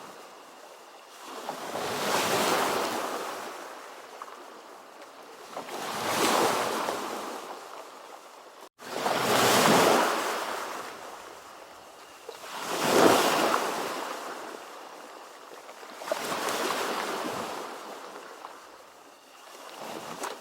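Ocean surf: waves breaking and washing in, each one rising to a rush of hiss and falling back about every three to four seconds, with a momentary cut in the sound about nine seconds in.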